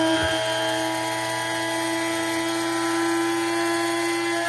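Brod & Taylor electric spice and coffee grinder running steadily at full speed with a high motor whine, grinding a charge of fennel seeds.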